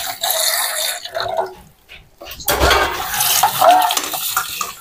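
Tap water splashing onto a stainless steel plate in a wash basin as it is scrubbed and rinsed by hand, with light clinks of the steel dishware. The flow dips briefly about two seconds in and comes back suddenly.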